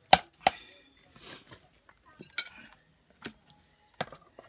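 Cutlery and dishes clinking: two loud sharp clinks right at the start, then three scattered single clinks, one with a brief ring.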